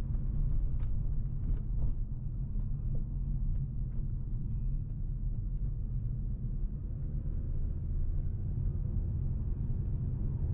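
Steady low rumble of road and engine noise inside the cabin of a Volvo C70 automatic driving along, with a couple of faint clicks in the first two seconds.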